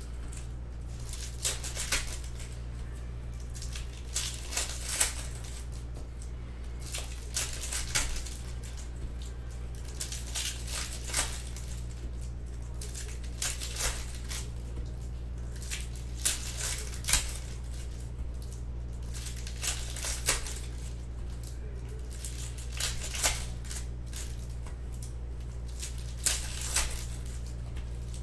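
Basketball trading-card packs being torn open and the cards handled, giving short crinkling snaps every second or two over a steady low hum.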